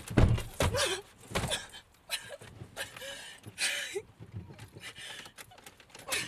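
A woman crying: short sobbing breaths and brief whimpers, with a heavy thump about a quarter second in and a few lighter knocks.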